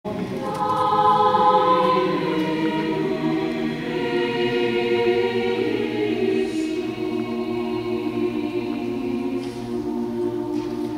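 Large mixed choir of men's and women's voices singing long sustained chords that change slowly.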